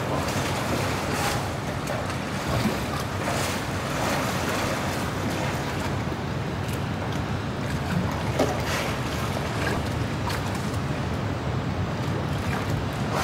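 Pool water splashing and sloshing as a polar bear swims and plays with a float, with brief splashes now and then over a steady low hum.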